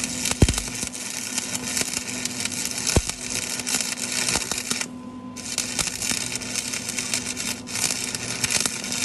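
Stick welder's arc crackling and sizzling as a bead is run with an old welding rod that has sat outside for a month. The arc cuts out for about half a second near the middle, then crackles on with a short dip later.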